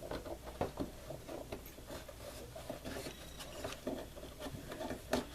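Faint handling noise of a retaining ring being worked onto the back of a USB/12V socket panel: scattered small clicks and rubbing.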